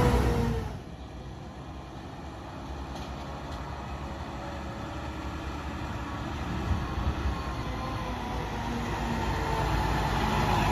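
A new Mack LR side-loader garbage truck driving. It is loud as it passes close at first; after a sudden drop it is heard far off, coming up the street and growing steadily louder, with a whine that rises in pitch near the end.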